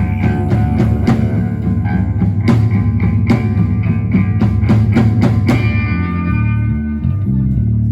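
Rock band playing live, with guitar, bass and drum kit. The drums stop about three-quarters of the way through, leaving bass and held guitar notes.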